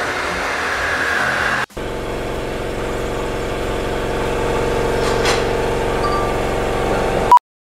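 A steady mechanical drone: a motor or engine running at a constant pitch. It breaks off abruptly at an edit about a second and a half in and carries straight on, and ends with a short blip and a brief dead gap.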